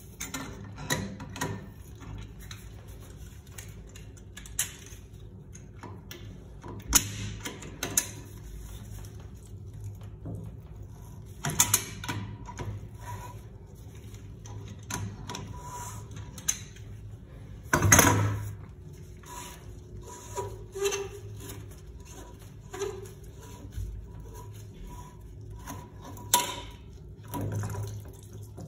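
Irregular metallic clicks, scrapes and knocks of a wrench and pliers working the chrome couplings of a Sloan toilet flush valve as it is loosened and unscrewed. The loudest knock comes a little past halfway.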